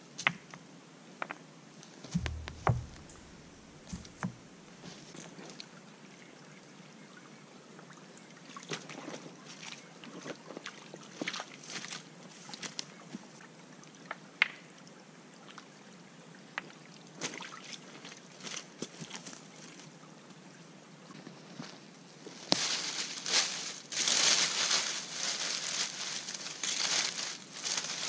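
A person handling stones and wood in and beside a shallow rocky creek. Scattered knocks, clicks and footsteps sound over the creek's faint steady trickle, with a few dull thuds a couple of seconds in. In the last five seconds, dry sticks and leaves are handled for tinder and give a louder stretch of rustling and crackling.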